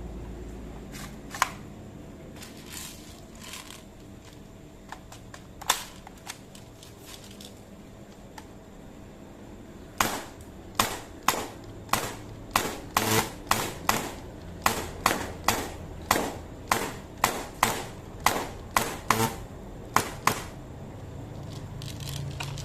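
HPA-powered airsoft AK-47 firing single shots, each a sharp pop. A couple of isolated shots come in the first six seconds. From about ten seconds in to about twenty, a string of about two dozen shots follows in quick succession, two to three a second.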